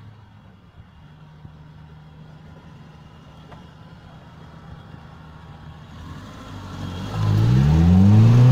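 Mitsubishi Pajero iO's 2.0-litre four-cylinder petrol engine running at low revs, faint at first, then revving up with a rising pitch about seven seconds in and growing much louder as the SUV climbs a dirt slope in two-wheel drive.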